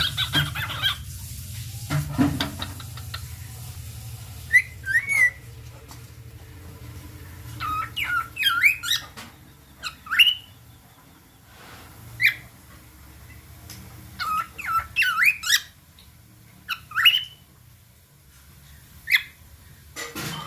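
Cockatiel singing: short whistled phrases of quick rising and warbling notes, coming in bursts every second or two with pauses between.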